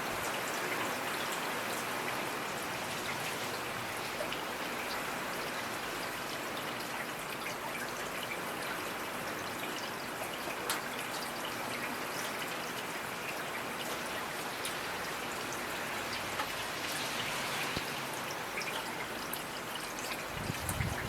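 Steady rainfall, a continuous patter of raindrops with a trickle of running water and scattered individual drips.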